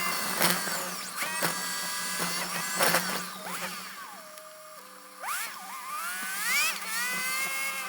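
A mechanical whine that rises and falls in pitch over a steady low hum, with three sharp knocks in the first three seconds.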